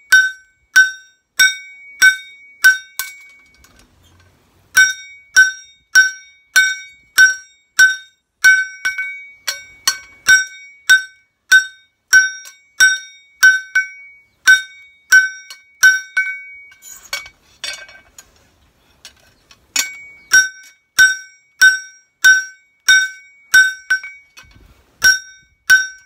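Hand hammer forging a kitchen knife blade on a steel anvil block, each blow ringing out metallically. The blows come evenly at a little under two a second, in three runs broken by two short pauses.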